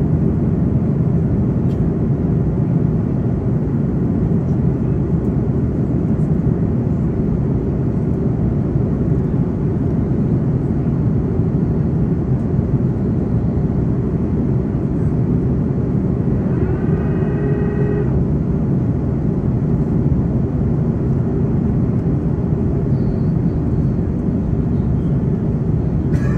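Steady airliner cabin noise on the approach to landing: a constant low rush of airflow and engines. A brief voice is heard for about a second roughly two-thirds of the way in.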